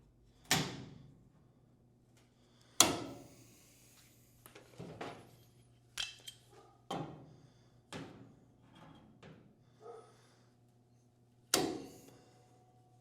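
Sharp knocks and clanks of metal tools and clamps being handled: three loud ones and about six softer ones, some with a short ringing tail, over a faint steady hum.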